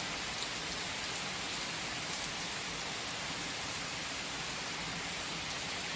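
Steady rain: an even hiss of rainfall with single drops ticking faintly here and there.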